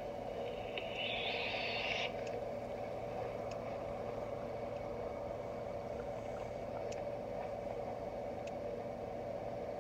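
Steady background hum with a short hiss about a second in and a few faint clicks.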